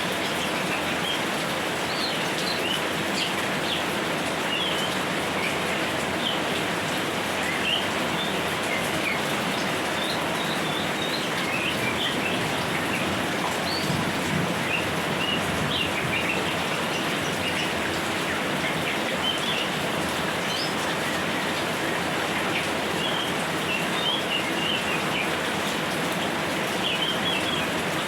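Steady light rain falling, with many short, high bird chirps scattered throughout.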